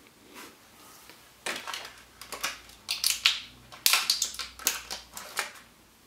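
Hands handling a replacement laptop RAM module and small parts around the opened MacBook: a run of irregular small clicks and crackles, starting about a second and a half in and stopping shortly before the end.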